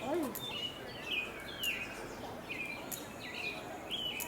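A small bird chirping over and over, short high notes about two a second, against steady background noise.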